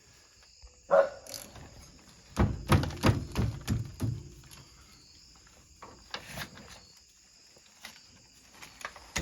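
Hand-tool work on a side-by-side's brake caliper: a sharp metallic clink, then a quick run of knocks about five a second, then a few scattered light knocks.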